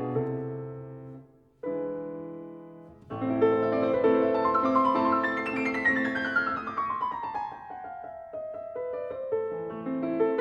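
Piano music: a chord dies away, a new one sounds, then a fuller passage with a long run of notes falling in pitch.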